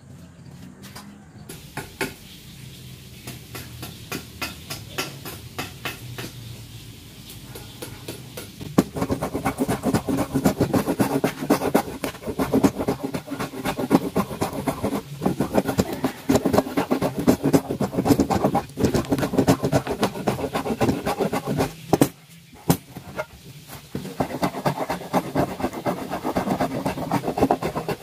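Wooden hand plane pushed along a strip of wood, a dense run of scraping planing strokes that starts about a third of the way in, breaks off briefly after two-thirds, then resumes. Before the planing, only quieter scattered knocks of wood being handled.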